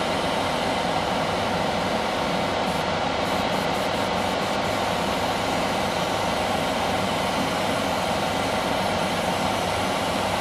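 Hobby spray booth's extractor fan running with a steady, even rushing hum.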